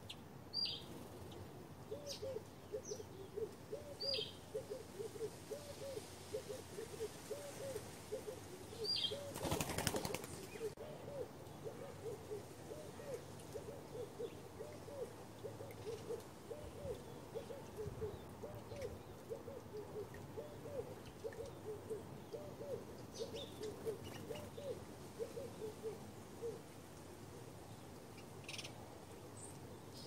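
A dove cooing a long, evenly repeated run of low notes, about two a second, with scattered short high chirps from small birds and a brief loud burst of noise about ten seconds in.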